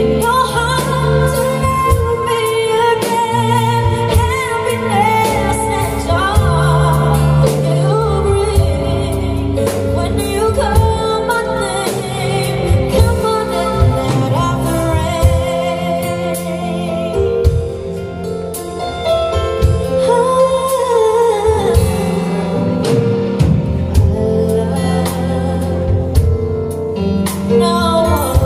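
A woman singing live into a handheld microphone, backed by a band, holding long notes with a wavering vibrato over steady low accompaniment.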